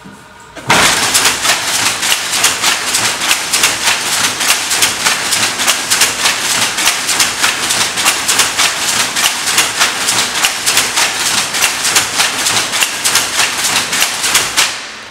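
Wooden-framed weaving loom running, weaving wool, with a loud, rapid, even clatter of its working parts. It starts abruptly about a second in and stops just before the end.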